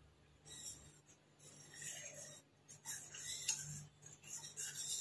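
Wooden spatula stirring a kadai of reducing milk, scraping and rubbing across the pan in irregular strokes that start about half a second in.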